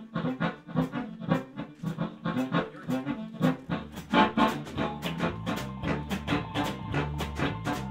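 Background music with a steady, quick beat; a bass line comes in about four seconds in.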